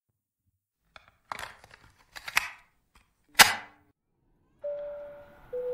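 Several sharp clicks and a loud snap about three and a half seconds in, then an airliner cabin chime: two steady notes, the second lower than the first.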